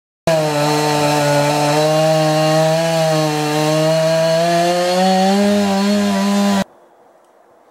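Chainsaw running at high speed, its pitch rising a little about five seconds in. It starts and cuts off abruptly.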